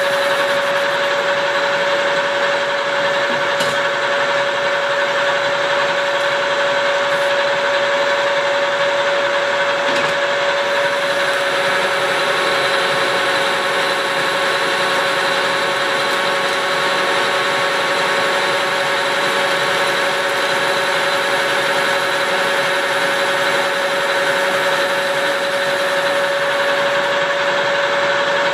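Engine lathe with a tracer attachment running under power while turning a steel shaft: a steady mechanical whine with one strong tone over a machine hum.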